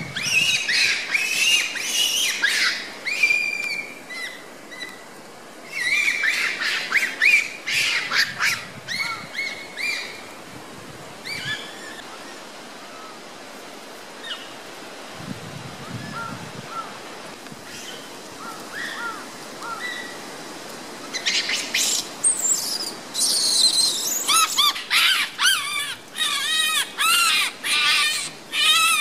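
Many short, high-pitched animal calls and chirps with rising-and-falling pitch, coming in bursts: a flurry at the start, another a few seconds in, a quieter stretch in the middle, and a dense run of calls in the last several seconds.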